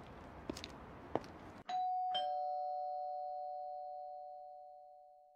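A few footsteps on a hard floor, then a two-tone doorbell chime about one and a half seconds in: a higher ding, a lower dong half a second later, both ringing out and fading slowly.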